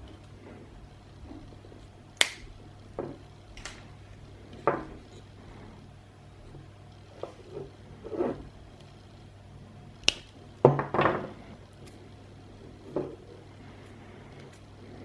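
Wire strippers cutting and stripping insulation from thin battery lead wires, with handling noise between strokes: a series of irregular sharp clicks and snips, the loudest about two seconds in and around ten to eleven seconds in.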